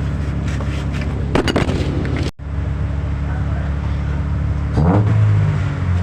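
Mitsubishi Strada pickup engine running steadily at idle, with a short break about two seconds in. Near the end the revs rise briefly and it runs a little louder.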